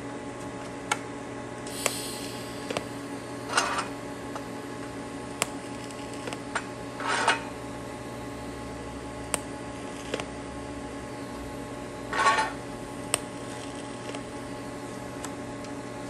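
TIG welder tack-welding the corners of a small steel box: a steady machine hum, with four short bursts of arc noise about two, three and a half, seven and twelve seconds in, the last two the loudest, and a few sharp clicks between them.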